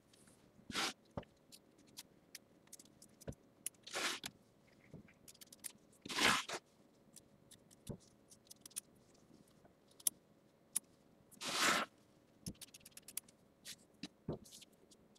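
Scissors trimming appliqué fabric close to the tack-down stitching: many sharp snips, with four longer scraping cuts through the fabric about one, four, six and eleven and a half seconds in.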